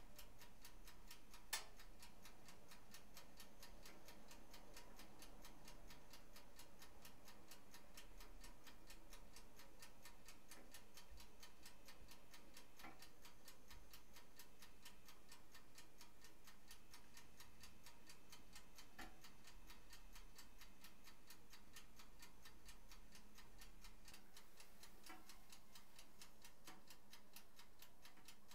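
Faint, steady ticking of a mini oven's clockwork timer running, with a few sharper clicks spaced several seconds apart.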